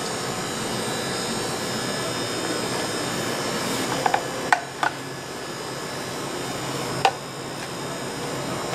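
Steady whirring hum of commercial kitchen machinery, with a few sharp clicks about four to five seconds in and one more near seven seconds.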